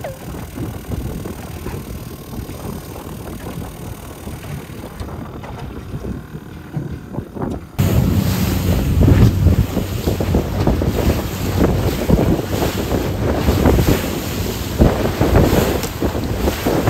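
A fishing boat's low rumble for the first eight seconds or so. Then it turns suddenly louder as the boat runs fast over open sea: water rushing and splashing in the wake, with wind buffeting the microphone.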